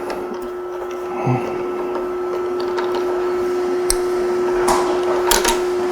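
A steady mechanical hum with several knocks and clanks from the e-bike's track kit and frame being handled.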